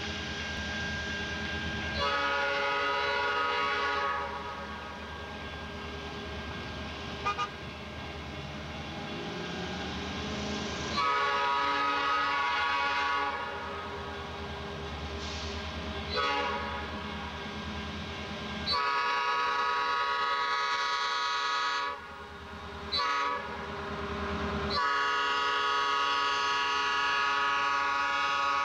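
Air horn of a Norfolk Southern SD40-2 diesel locomotive sounding a series of blasts for a grade crossing: several long chords, then a short toot and a final long blast held near the end. A low steady rumble runs underneath.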